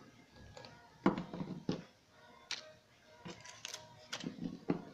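Irregular light taps and knocks of a plastic Littlest Pet Shop figurine being set down and hopped across a windowsill by hand, coming closer together near the end.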